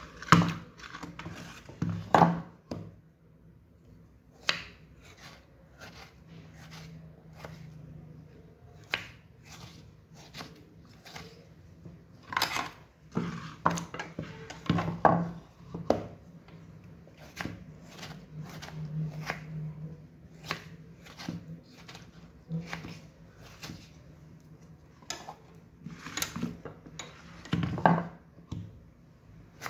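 Kitchen knife and wooden cutting board: irregular knocks, taps and scrapes as diced tomato is handled and scraped off the board, with a few louder sharp knocks scattered through.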